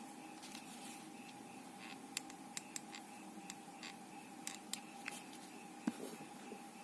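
A scattering of sharp small clicks and taps, about seven, from hands working with craft tools and lace at a table, over a faint steady hum.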